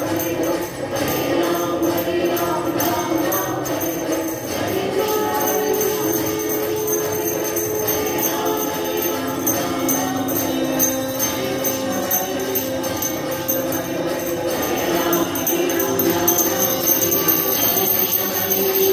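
Devotional aarti singing with a small bell jingling along, the voices holding long notes.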